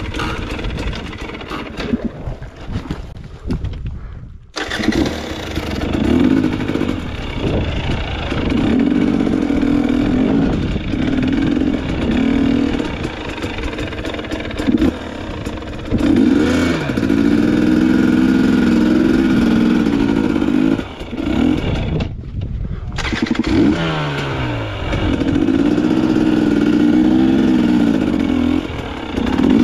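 Dirt bike engine being revved and throttled on and off, its pitch rising and falling in short bursts. The sound cuts out abruptly twice, briefly.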